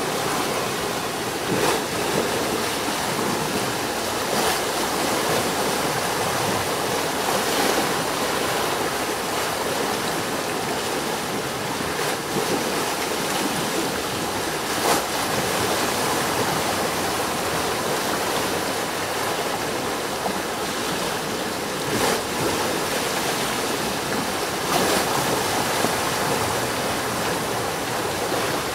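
Water rushing steadily down a small stone-walled channel and pouring over its low weirs, a constant hiss with a few brief louder swells.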